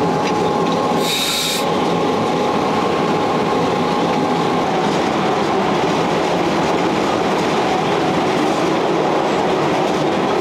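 Cab of the 1932 Sécheron T9 electric locomotive running through a tunnel: a steady rumble of wheels on rail, with a thin whine that fades out about halfway. A brief hiss comes about a second in.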